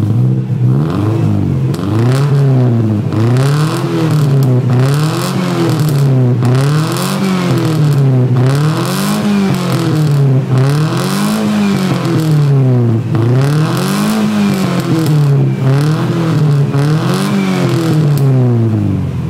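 A 1996 Subaru Impreza's flat-four boxer engine heard through an aftermarket exhaust and muffler, revved over and over, the note rising and falling about every two seconds.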